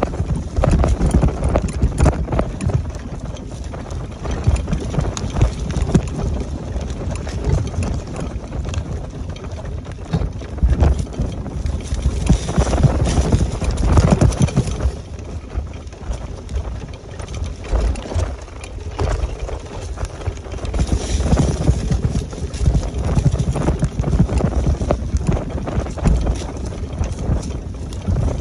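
Invacare TDX SP2 power wheelchair driving over a rough off-road path: a steady rolling rumble with frequent irregular knocks and clatter as the chair jolts over bumps.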